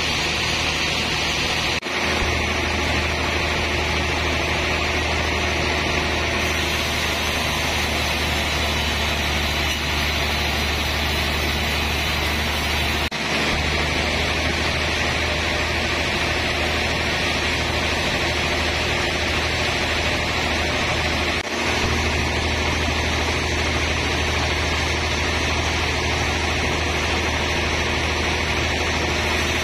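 Sawmill band saw running steadily with a low hum and a hiss from the blade as it saws through a large trembesi (rain tree) log. The sound breaks off for an instant three times.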